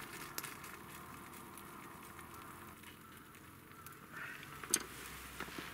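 Hot water poured from a small metal pot into a wooden kuksa cup, a steady pouring splash that tapers off after about three seconds. A sharp click comes near the end.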